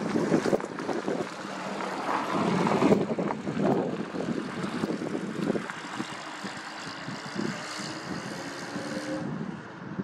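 Wind buffeting the microphone in uneven gusts, strongest in the first few seconds, over a low, steadier drone of a distant engine that carries faint tones in the second half.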